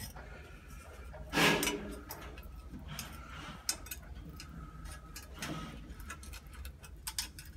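Small clicks and scrapes of metal lock hardware being handled and fitted against a door, with a louder brief scrape about a second and a half in.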